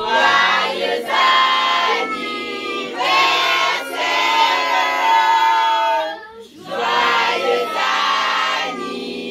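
A group of children and adults singing a birthday song together, loud and ragged, in short phrases with a brief pause about six seconds in.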